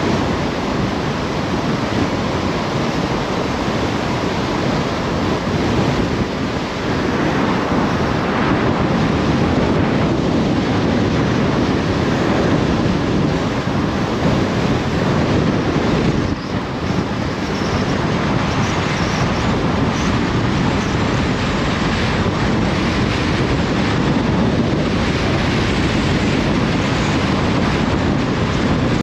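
Steady, loud rushing of wind buffeting the microphone, mixed with the wash of surf.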